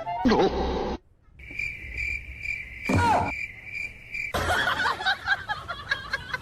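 Cricket chirping, a steady pulsing high trill lasting about three seconds, with a short falling cry over it about halfway through. Brief clips of other, noisier sound come before and after it.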